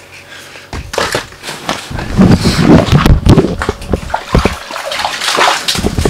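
Water sloshing and splashing in an ice-fishing hole as a hooked fish is fought at the surface on a bent rod, with irregular knocks and clatter.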